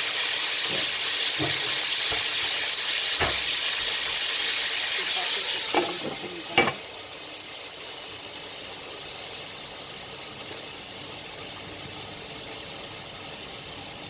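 Fish frying in hot oil in a pan over high heat, with a steady sizzle. There are a few light knocks of a utensil against the pan, the last two around six seconds in, after which the sizzling is quieter.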